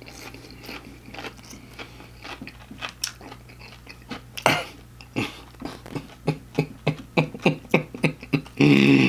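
Close-miked chewing of a fried, breaded butterfly shrimp: crisp crunches and wet mouth sounds, settling into about three chews a second in the second half. A man's voice breaks in loudly near the end.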